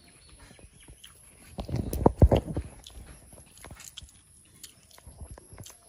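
Close-up eating sounds: fingers mixing rice and pork curry on a metal plate, with chewing and small mouth clicks. A loud low thump comes about two seconds in.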